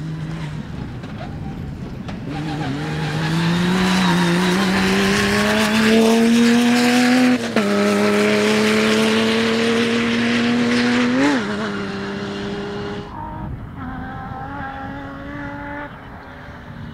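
Phil's Car rally buggy with its PRV V6 engine accelerating hard past, the engine note climbing then dropping sharply with an upshift about seven seconds in and again near eleven seconds. After about thirteen seconds, a quieter, more distant rally car engine.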